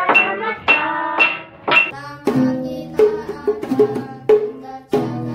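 Homemade song accompaniment on acoustic guitar with hand-drum percussion. It starts as a run of short, bright, ringing notes, and about two seconds in it moves to lower, fuller notes with sharp strokes.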